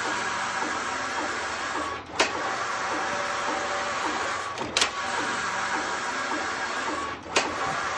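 Passap E8000 knitting machine knitting rows under its motor drive: the lock runs steadily along the needle beds, and at each row end it stops and reverses with a sharp clack, about every two and a half seconds, three times.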